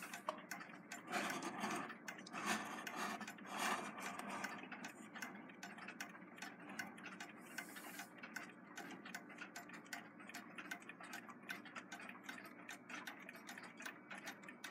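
Several Westclox wind-up alarm clocks ticking at once, their beats overlapping out of step. There are a few louder rustles from hands on a clock case in the first few seconds.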